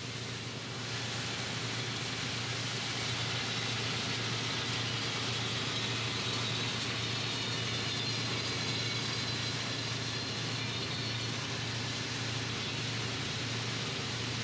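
Belgian series 59 diesel locomotives running steadily with a low engine hum as they haul a ballast train, under an even hiss.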